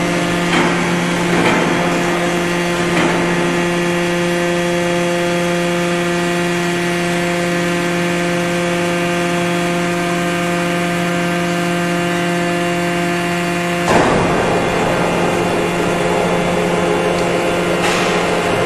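Four-column hydraulic deep drawing press running under load, its hydraulic pump giving a steady hum. About fourteen seconds in there is a knock and the hum changes.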